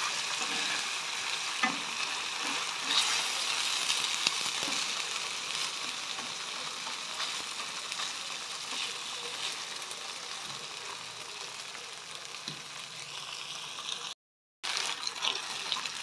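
Seafood fried rice sizzling in a non-stick wok as it is stir-fried, with the utensil scraping and tapping now and then against the pan. The sizzle cuts out for a moment near the end.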